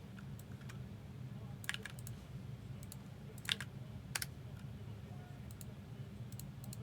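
Scattered computer keyboard and mouse clicks, a few sharper ones about two, three and a half and four seconds in, over a low steady hum.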